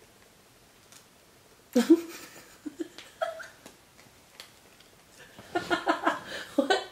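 Paper wrapping on a mailed package crinkling and tearing in short rustles and clicks as it is picked open, with brief bursts of a person's voice, the first about two seconds in and more near the end.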